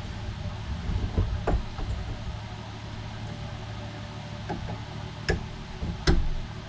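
Metal engine parts being handled, knocking and clunking a few times, the loudest near the end, over a steady low machine hum.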